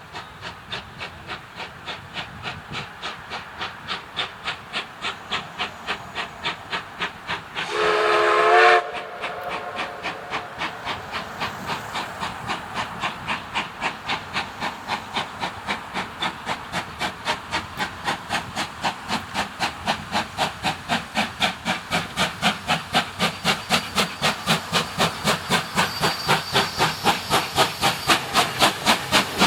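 Steam locomotive getting under way: its exhaust chuffs quicken from about two to about three a second and grow louder, with a hiss of steam behind them. A single whistle blast of about a second comes about eight seconds in.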